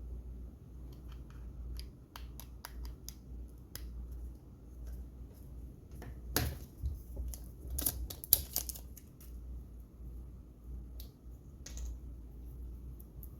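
Scattered small clicks and handling noises, with a denser run of louder clicks about six to nine seconds in, over a low steady rumble.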